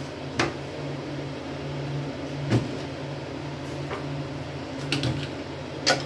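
Stainless-steel plates and bowls knocking and clinking as they are picked up and stacked, about five sharp knocks, the loudest about two and a half seconds in and just before the end. A steady low hum runs underneath.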